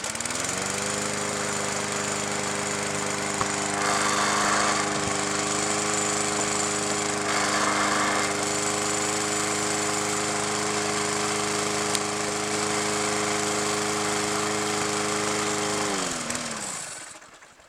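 1993 Murray 3.5 hp lawn mower engine coming up to speed, then running steadily at a constant pitch. Near the end it is shut off and winds down to a stop.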